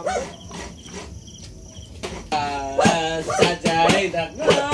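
Sharp knocks at an uneven beat, joined about halfway by a loud voice singing in held, sliding notes, over a steady high cricket trill.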